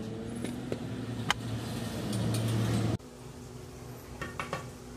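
Car engine running, heard inside the cabin as a steady low hum with a few light ticks, swelling slightly before it stops abruptly about three seconds in. Then a quieter room hum with a quick cluster of light clicks as the small digital clock's button is pressed.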